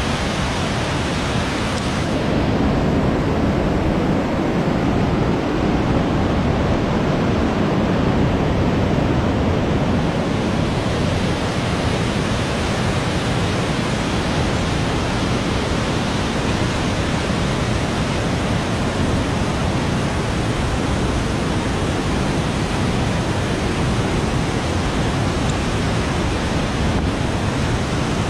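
Whitewater river rapids rushing over boulders: a loud, steady rush of water.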